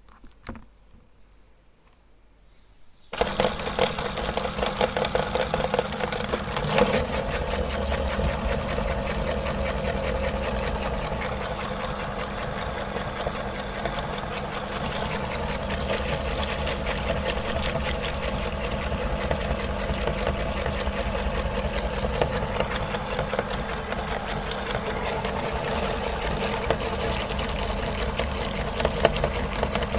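Electric meat grinder switched on about three seconds in, its motor then running steadily and loudly, with a brief louder surge a few seconds after it starts.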